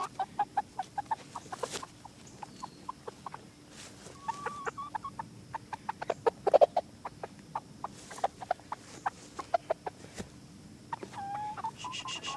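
Chickens clucking in many quick short notes, with a few brief drawn-out calls and a louder flurry a little past the middle, while a young rooster is being caught.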